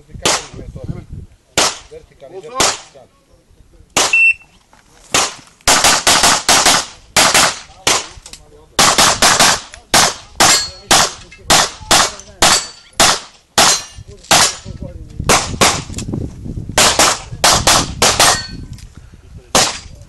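Handgun shots fired rapidly in an IPSC practical shooting stage: dozens of sharp cracks, often in quick pairs, with short pauses between strings.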